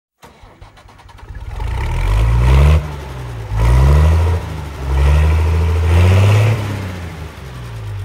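An engine starting and revving up three times, its low pitch rising and dropping back each time before settling.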